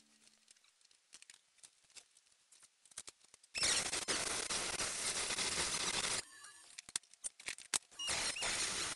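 Handheld Proxxon mini drill with a cutting disc grinding into model railway track, in two runs: one of about two and a half seconds starting some three and a half seconds in, and a shorter one near the end. Small clicks and taps of handling the track come before and between.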